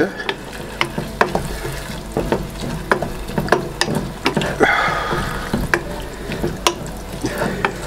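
Wooden spoon stirring sliced leeks and cream in a stainless steel saucepan, knocking and scraping against the pan about twice a second over a steady sizzle.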